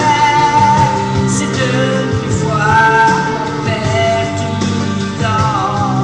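A woman singing a French pop ballad over instrumental accompaniment, holding notes of about a second each and sliding between pitches.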